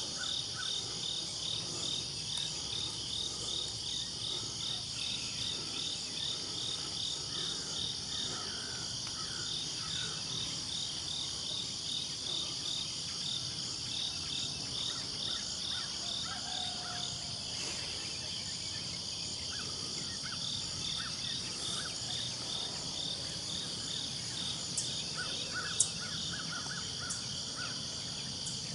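Pre-dawn insect chorus: a steady high trilling with a rhythmic pulsing chirp, a few short chirps mixed in. Near the end, a couple of sharp clicks, one of them louder than everything else.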